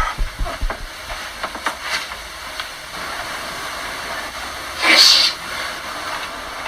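A few light knocks in the first two seconds, then one short, loud hissing burst about five seconds in.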